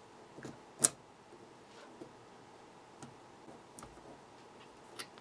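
Plastic pry tool clicking against a camcorder battery's plastic case while prying out the tightly fitted cell pack: one sharp click a little under a second in, a few faint ticks, and another click near the end.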